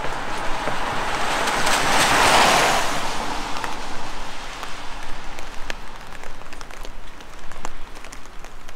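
A car passes on the wet road, its tyres hissing through the water as it swells to a peak about two seconds in and fades by three. Scattered raindrops patter throughout.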